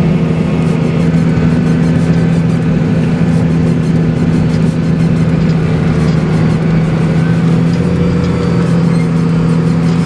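Six-cylinder 7.1-litre Deutz diesel of a Deutz-Fahr Agrotron MK3 150 tractor running steadily at constant revs, heard on board while the tractor pushes a front snowplow.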